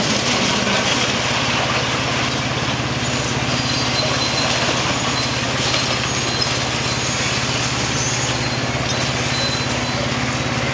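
Daewoo hydraulic excavator's diesel engine running steadily while it works on a demolition, with a constant hiss over the engine drone.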